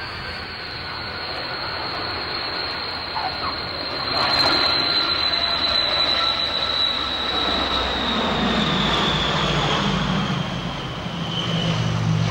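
The Rolls-Royce Dart turboprops of a Hawker Siddeley Andover C.1 on its landing roll. Their high-pitched whine slowly falls in pitch, and a lower propeller drone grows in over the last third.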